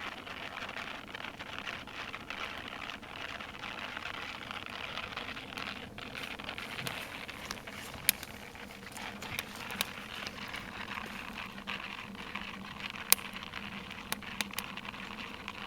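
Wood-fired rocket stove burning: a steady rushing hiss with scattered sharp crackles and pops, the loudest about eight and thirteen seconds in.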